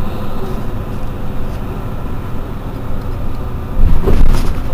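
Mercedes-Benz Citaro C2 city bus idling while stationary, its engine a steady low rumble; near the end comes a short, louder rush of noise.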